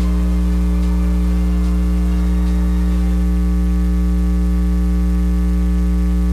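Loud, steady electrical mains hum with a buzzy edge, unchanging throughout: interference picked up in the audio line rather than any sound in the room.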